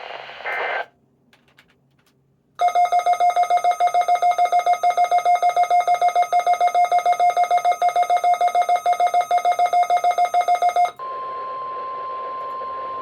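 Weather alert radio's electronic alarm beeping rapidly, several beeps a second, for about eight seconds. It is followed by the steady 1050 Hz NOAA Weather Radio warning alarm tone over radio static, which signals the start of a station's weekly alarm test.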